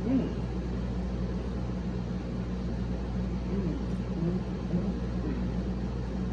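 Steady low hum of a room appliance, with a few faint, short murmur-like sounds over it.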